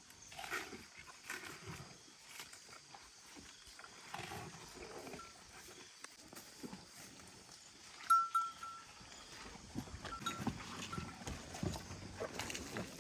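Farm livestock making scattered, irregular calls and movement noises, with a brief sharp high tone, the loudest sound, about eight seconds in.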